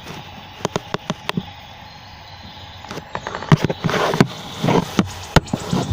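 Handling noises: a series of light clicks and knocks, getting busier and louder about three and a half seconds in, with brief rustles among them.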